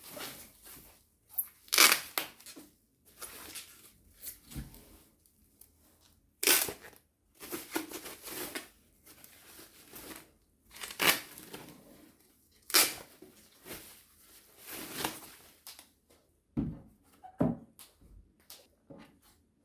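Packaging being handled and torn open: irregular bursts of rustling and tearing, with a couple of dull knocks near the end.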